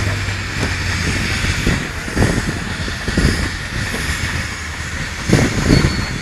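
Steam traction engines and heavy haulage lorries running as they move in procession. A steady low hum fades out in the first couple of seconds, and irregular low knocks come through, loudest about five and a half seconds in.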